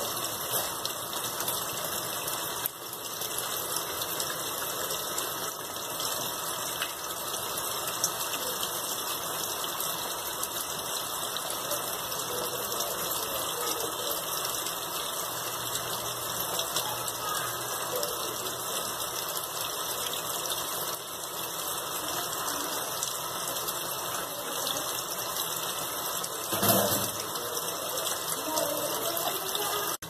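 Consul CWG12 top-loading washing machine filling its tub with water for the rinse: a steady rush of water pouring in, with one brief louder knock near the end.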